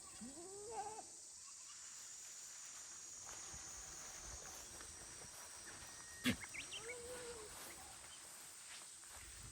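Goats bleating, two short calls with a rise and fall in pitch, one at the start and one about seven seconds in. A single sharp knock comes just before the second call, over a steady high insect drone.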